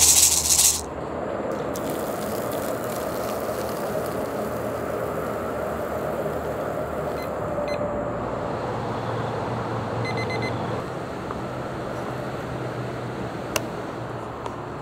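Steady outdoor background noise, an even hum and hiss with no single clear source, opened by a short loud hiss in the first second. Faint short beeps come twice around the middle as a digital kitchen timer is set, and a sharp click sounds near the end.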